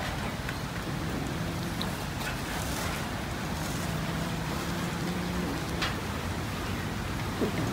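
Several cats chewing raw chicken from metal dishes: faint wet chewing with a few small clicks, under a steady background hiss and a low hum.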